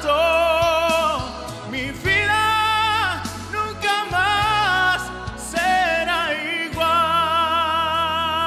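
Gospel worship music: a solo voice sings several phrases of long held notes with vibrato, over a sustained instrumental backing with a steady bass.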